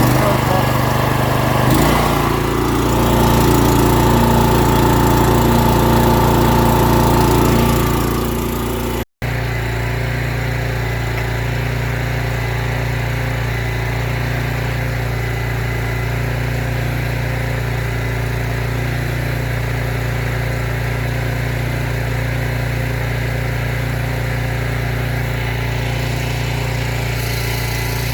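Petrol engine of a Savi pressure washer running just after being pull-started on choke, loud and rough for the first several seconds, then settling into a steadier, slightly quieter run after a brief break in the sound about nine seconds in.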